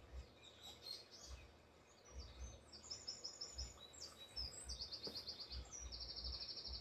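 A small songbird singing: scattered high chirps, then rapid trills of quickly repeated high notes that grow louder toward the end.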